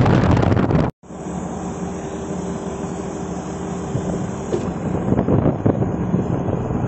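Wind buffeting the microphone, cut off by a brief total dropout about a second in. After it a steadier, quieter rushing noise follows, with a faint hum.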